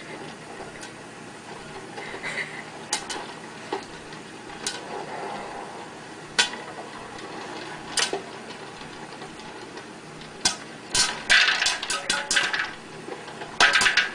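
Popcorn popping in an electric popcorn popper under a clear plastic dome. It starts as a few scattered pops, then quickens into rapid clusters of pops over the last few seconds, over a faint steady hiss.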